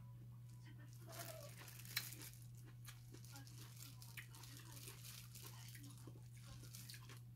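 Faint crinkling of disposable plastic gloves and soft eating noises as food is picked apart and eaten by hand, with small clicks and one sharper click about two seconds in, over a steady low hum.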